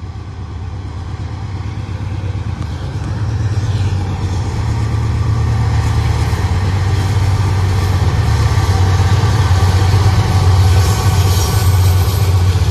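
Diesel locomotive leading a Norfolk Southern freight train approaching, its engine a steady low rumble that grows louder as it nears.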